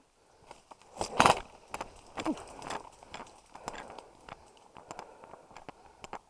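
Footsteps crunching through dry leaf litter and brush, with the loudest burst of rustling about a second in.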